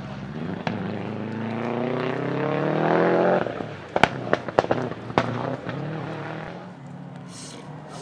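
Subaru Impreza 555 Group A rally car's 2.0-litre boxer engine accelerating hard, its pitch rising, then about halfway through four sharp anti-lag backfire bangs in a little over a second as the driver lifts off. The engine then fades as the car pulls away.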